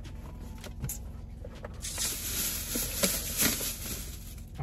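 Crinkling and rustling of takeout packaging for about two and a half seconds, starting about two seconds in, after a few light clicks.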